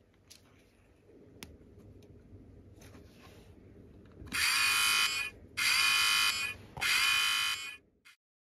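Novelty red push-button box: faint handling clicks and a sharp click as its clear lid is flipped, then the button is pressed and it sounds three loud buzzer blasts of just under a second each.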